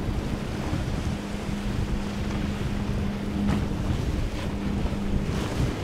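Yamaha jet-drive sport boat running fast at planing speed, its engine a steady drone over the hiss of its wake, with wind buffeting the microphone.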